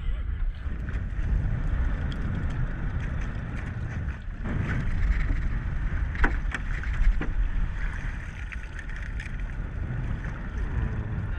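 Wind noise on the microphone with water splashing and lapping beside a small boat's hull, broken by a few sharp knocks about four, six and seven seconds in.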